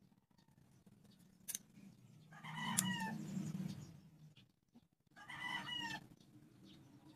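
Two drawn-out animal calls, a longer one about two seconds in and a shorter one about five seconds in, each falling in pitch at the end. Two sharp clicks come before and during the first call.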